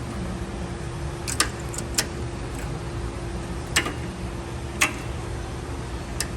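Vehicle engine running with a steady low hum, broken by about half a dozen sharp, irregular clicks.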